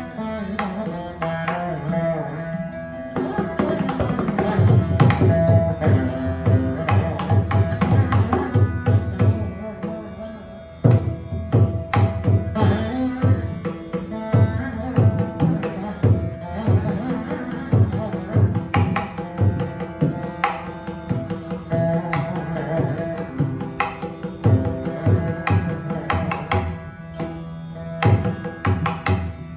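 Saraswati veena playing a Carnatic kriti in Thodi ragam, with the plucked melody over its drone strings, accompanied by dense mridangam strokes in Adi talam.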